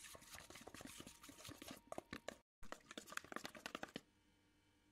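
A metal spoon stirring a thick yogurt and spice marinade in a stainless steel bowl: soft wet squelching with quick clicks and scrapes of the spoon against the metal. It breaks off briefly midway and stops about four seconds in.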